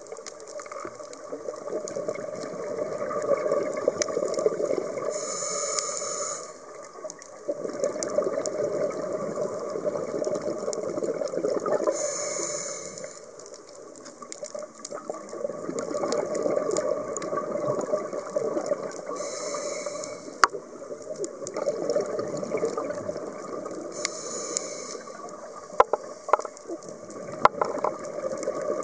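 Scuba diver breathing through a regulator, heard muffled through an underwater camera housing. About every six or seven seconds a short hissing inhale comes, four times, each followed by a longer rush of exhaled bubbles. A few sharp clicks near the end.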